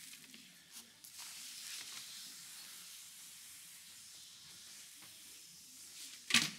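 Rustling and handling noise, heaviest for the first few seconds, then one sharp knock near the end.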